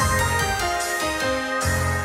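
Background music with a steady beat and bass, melody notes changing quickly.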